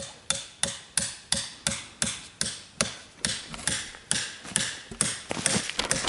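Glock field knife hacking repeatedly into an old stump to chip out resin-rich fatwood (Kienspan): sharp, regular strikes of blade into wood, about three a second.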